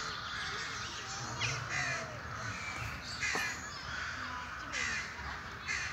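Crows cawing several times over a steady background chorus of smaller birds chirping.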